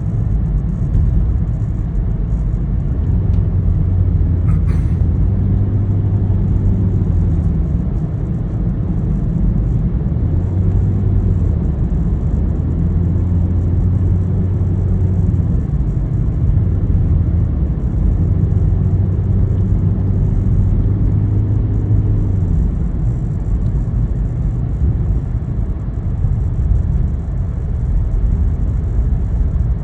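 A vehicle driving, heard from inside: a steady low rumble of engine and road, with the engine note holding for a few seconds at a time and then dropping away, three times over.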